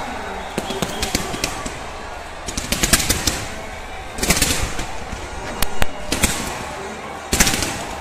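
Fireworks going off in rapid crackling pops, with several louder bursts in the second half.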